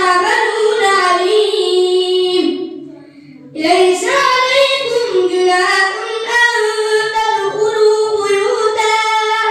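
A boy reciting the Quran in a melodic, chanted style into a microphone, holding long drawn-out notes that glide in pitch, with a short pause for breath about three seconds in.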